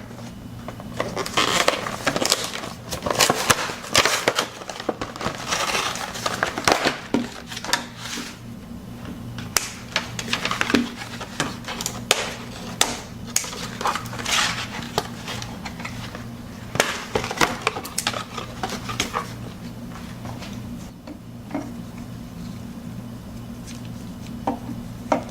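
Cardboard window box and plastic packaging of an action figure being opened and handled: irregular rustling, crinkling and scraping, thinning out to a few clicks over the last few seconds, over a steady low hum.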